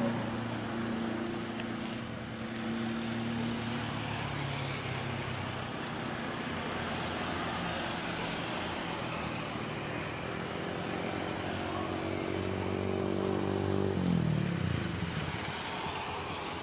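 A road vehicle's engine passing close by, its hum rising in pitch as it comes and dropping sharply about fourteen seconds in as it goes past, over a steady broad rushing noise.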